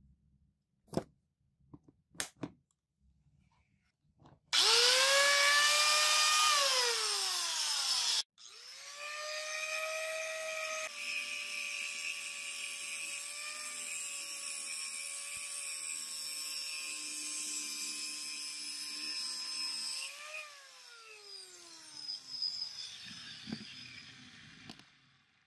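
Electric angle grinder with a cut-off disc: a few light clicks, then the motor spins up with a rising whine and starts to wind down. It spins up again and cuts through a steel pipe for about nine seconds, a steady whine under the harsh grinding hiss. Then it is switched off and winds down with a falling whine.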